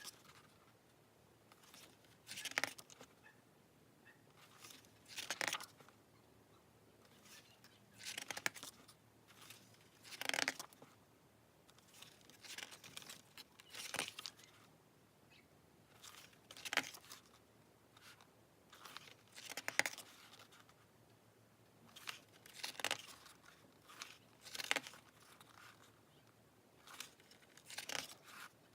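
Packaging being handled and opened: short bursts of rustling, crinkling and tearing every two to three seconds.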